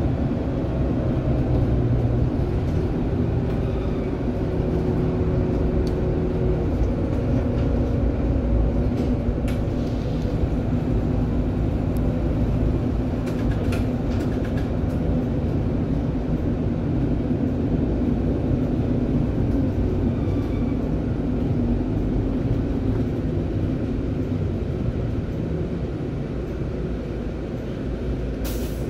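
Inside a city bus driving on the road: steady engine drone and road noise, easing off near the end as the bus slows. A sharp click just before the end.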